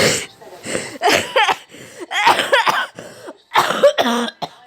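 A coughing fit: a person coughs in about five separate bouts, each under a second, with a rasp of voice in some of them.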